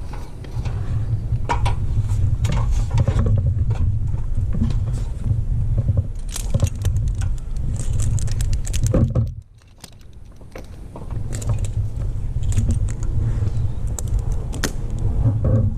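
Clinking and rattling of metal climbing hardware over a steady low rumble, which the uploader suspects comes from something on his helmet. The rumble drops out briefly about nine and a half seconds in.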